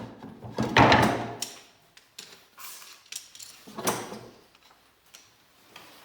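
Workshop handling noises: things being moved, picked up and set down, with two louder scraping knocks about a second in and about four seconds in, and small clicks and taps between them.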